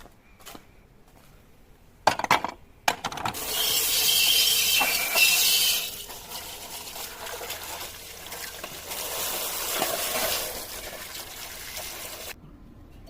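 A few clicks, then a hissing spray of liquid that starts loud, settles to a steadier, quieter hiss, and cuts off suddenly near the end, as parts of a chainsaw are washed or sprayed.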